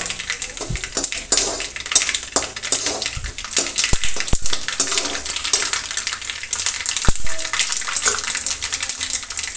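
Whole spices and curry leaves sizzling and crackling in hot oil in an aluminium kadhai as a tadka is tempered. A perforated metal spoon stirs them, clicking sharply against the pan a few times around the middle.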